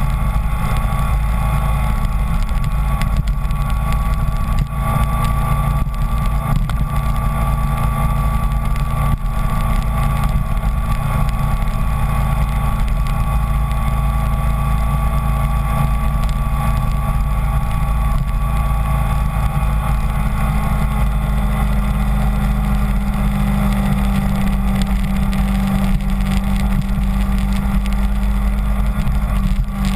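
Kawasaki Ninja 250's parallel-twin engine running steadily while the bike is ridden, its note climbing a little about twenty seconds in.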